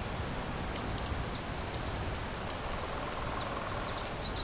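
A small songbird singing high, quick repeated phrases, each a brief high note followed by a few short falling notes, over faint forest ambience. The song is heard at the very start, pauses, then returns from about three seconds in.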